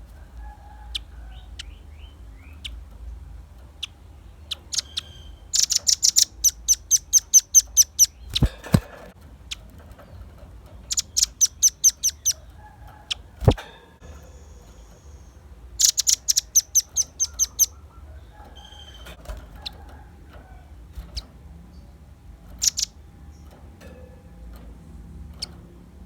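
Velvet-fronted nuthatch singing: three fast runs of sharp, high chip notes about two seconds each, with scattered single calls between them. Two sharp knocks cut in, one about 8.5 seconds in and a louder one about 13.5 seconds in, over a low steady hum.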